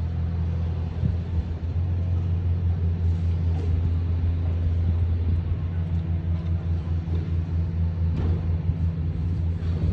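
Diesel engines of excavators running with a steady low drone, with a few short knocks.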